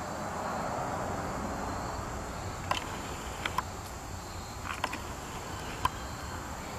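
Steady outdoor background of insects with about half a dozen light, sharp clicks in the second half.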